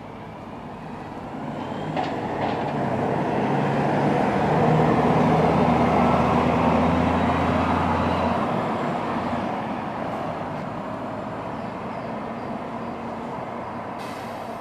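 Scania K420 double-decker coach's diesel engine pulling away, growing louder as the bus passes close by. About eight seconds in the engine note drops away and the sound fades as the coach drives off.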